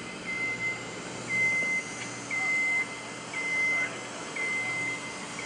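An electronic warning beeper sounding six times, one steady high beep of about half a second each second, in the style of a machine's reversing alarm, over the steady hum of a large hall.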